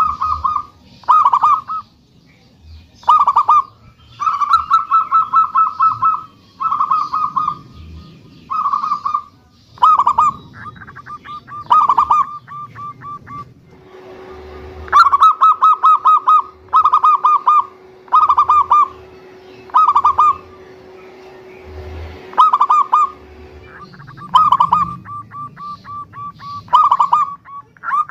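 Zebra dove (perkutut) singing: phrase after phrase of rapid staccato coos, each phrase under a second, with short pauses between them.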